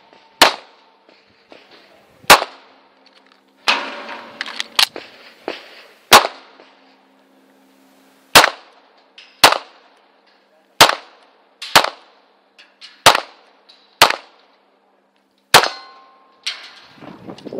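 Tanfoglio Stock 2 Xtreme 9mm pistol, loaded with 115-grain factory ammunition, firing about eleven single shots spaced one to two seconds apart.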